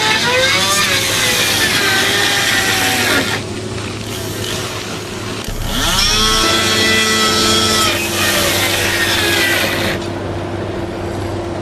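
Loud firefighting sound-effect mix dominated by a power saw, its motor pitch bending up and down, then spinning up again about five and a half seconds in and running steady. The mix thins out near the end.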